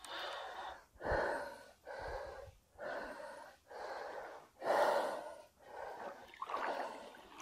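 A man breathing hard and quickly close to the microphone, about one loud breath a second, from the strain of playing a hooked pike on a spinning rod.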